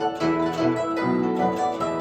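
Guzheng being plucked in a quick, steady stream of ringing notes.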